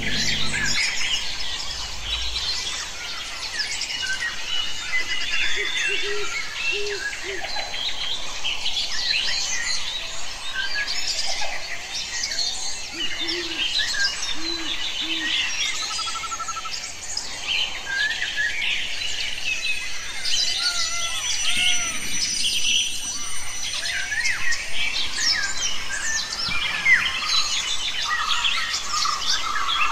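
Forest bird chorus: many birds chirping and trilling at once, with a few short low calls repeated in twos and threes.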